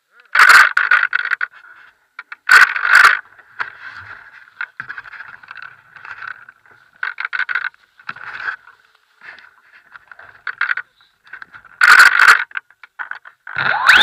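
Irregular bursts of scraping and rubbing handling noise picked up by a model plane's onboard camera as the airframe is handled and lifted. Near the end the plane's propeller motor starts with a short rising whine.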